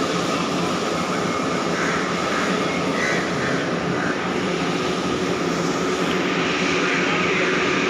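Wanderer thread milling machine running: a steady mechanical hum of motor and gearing with a constant whine, and a brighter hiss coming in near the end.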